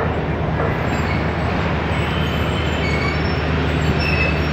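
Express train's passenger coaches rolling slowly past, wheels running over the rails with a steady low hum and a few faint, brief high wheel squeals as the train comes into the station.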